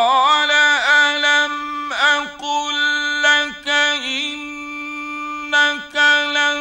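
Male Qur'an reciter's voice in the melodic mujawwad style, holding one long drawn-out note and ornamenting it with repeated turns and dips in pitch.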